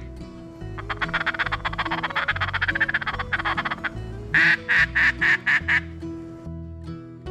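Ducks calling: a rapid chattering, then a run of about six loud quacks about four seconds in, over background music with held low notes.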